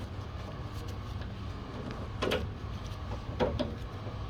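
Hand work on a van's sliding-door latch and release cable: a few short clicks and rattles, the clearest about two seconds in and again about three and a half seconds in, over a steady low hum.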